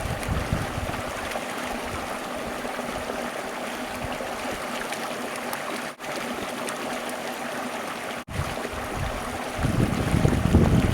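Stream of water running steadily, with two brief dropouts about six and eight seconds in. A low rumble of wind on the microphone picks up near the end.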